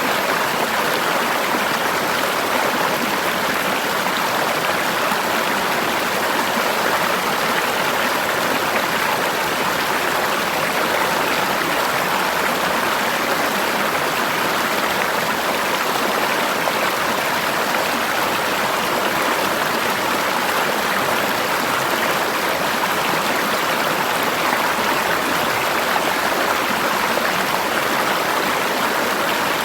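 River water rushing over rocks in a forest stream, a steady, unbroken flowing sound.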